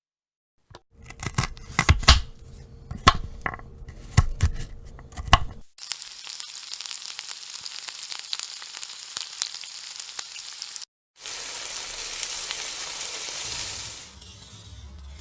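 A quick run of sharp clicks and knocks for about five seconds, then a steady high hiss that cuts off abruptly, followed by a second, shorter hiss that fades.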